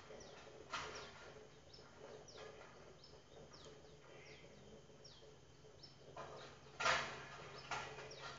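Dogs barking a few times, about a second in and twice near the end, the last two the loudest. Between the barks, small birds chirp with many short falling calls.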